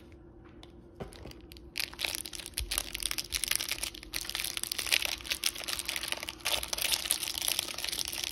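Clear plastic cellophane wrap on a stack of trading cards being picked at and torn open by fingers. A few light clicks come first, then dense crinkling and crackling from about two seconds in.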